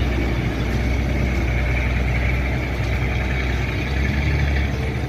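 Heavy truck's diesel engine running steadily at low revs while the truck wades through deep floodwater, its low note changing a little about four seconds in.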